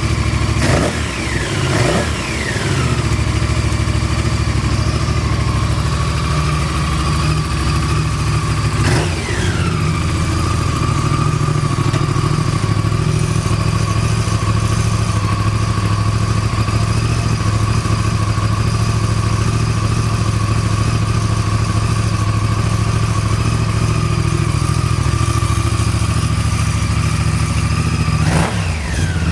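A 1999 Honda VTR1000F's V-twin engine idling steadily. It is blipped twice in the first couple of seconds, again about nine seconds in, and once more near the end, and the revs fall back to idle each time. The seller lists a stable idle with no abnormal noise.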